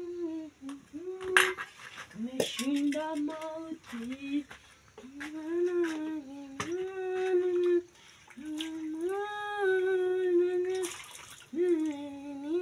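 A voice singing a slow tune in long held notes, with scattered clinks and knocks of dishes and utensils.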